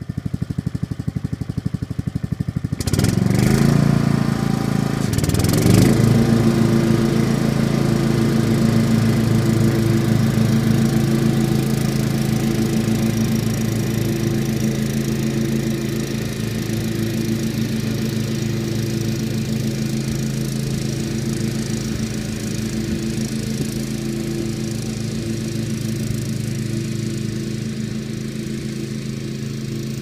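Exmark 36-inch commercial walk-behind mower's engine running, revved up twice in the first few seconds, then holding a steady speed and slowly fading as the remote-controlled mower drives away across the lawn.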